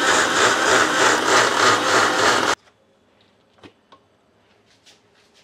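Usha mixer grinder running at full speed, its stainless-steel jar blending rice and hot water, then switched off, stopping abruptly about two and a half seconds in. Faint clicks and knocks follow as the steel jar is handled.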